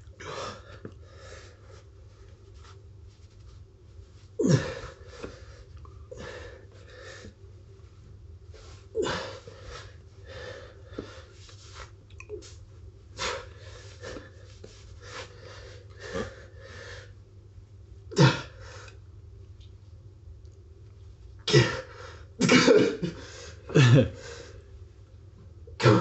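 A man grunting and blowing out hard, sharp breaths in a string of short bursts, from heavy physical strain while forcing a solid rubber tyre onto a scooter wheel rim by hand; the loudest come close together near the end.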